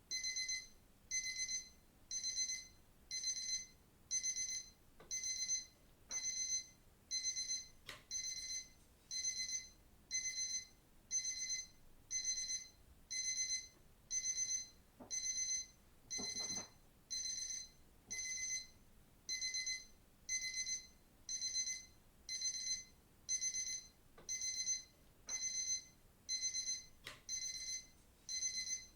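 Digital watch alarm: short bursts of high-pitched electronic beeping, repeating steadily about once a second.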